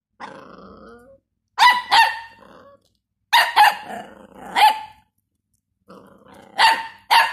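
Dachshund puppy yapping: seven short, high-pitched barks in three quick clusters, with low growling between them.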